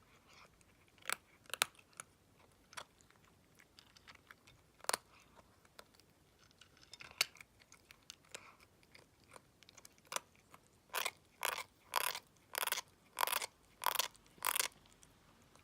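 Savannah kitten's teeth grinding and crunching as he chews, a horrible tooth-grinding sound of teething: his milk teeth are being shed, and the vet found a cracked milk tooth. Scattered crunches, then about seven grinding chews in a steady run near the end.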